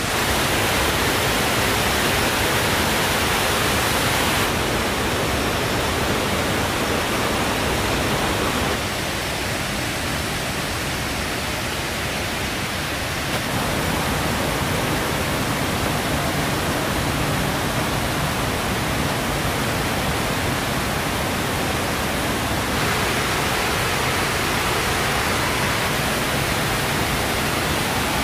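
Steady rushing noise spread evenly from low to high pitch, its tone shifting abruptly a few times.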